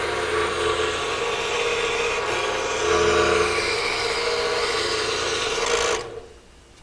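Scroll saw running, its reciprocating blade cutting through a photo-mounted wooden board with a steady rasping noise; the sound stops abruptly about six seconds in.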